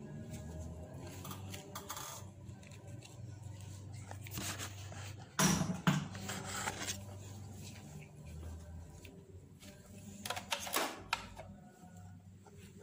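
A few knocks and clicks over a low steady hum, the loudest knock about five and a half seconds in and another pair near eleven seconds.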